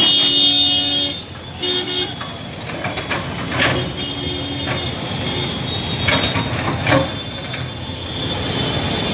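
Road traffic with vehicle horns honking: a honk of about a second, then several shorter ones, over steady engine and road noise.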